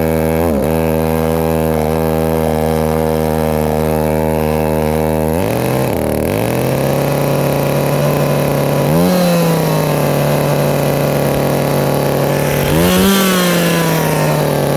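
Two-stroke chainsaw engine running steadily; about five seconds in its speed rises and holds higher, with two short throttle blips later on. The idle is too high, which the owner puts down to a carburetor problem.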